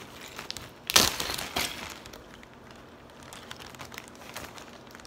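Plastic zip-top freezer bag crinkling as it is handled and opened, with a sharp crackle about a second in, a smaller one soon after, then quieter rustling.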